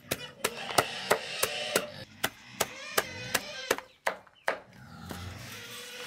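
A large knife chopping leafy green vines against a wooden block, a steady run of sharp chops at about three a second.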